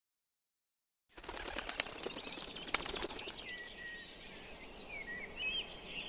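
Wild birds chirping and calling: a quick run of sharp chirps and ticks, then thin whistled calls that slide up and down. It starts about a second in, after silence.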